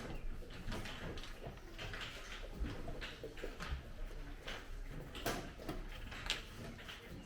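Scattered light clicks and knocks over faint room noise, a few of them sharper, at uneven intervals.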